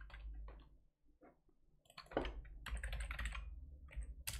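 Typing on a computer keyboard: a few scattered keystrokes, a near-quiet gap about a second in, then quick runs of keystrokes from about two seconds in.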